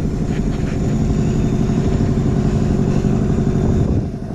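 Boat engine running steadily at a low, even speed, easing off briefly near the end.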